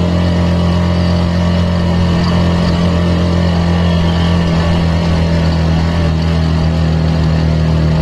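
Suzuki GSX-S150's stock single-cylinder engine running at a steady cruise, heard from the rider's seat as an even drone.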